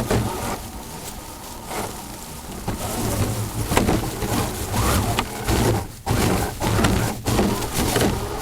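RC crawler truck's electric motor and drivetrain running as it drives over rough ground, with irregular crackling and two brief dropouts about six and seven seconds in from glitching onboard-camera audio.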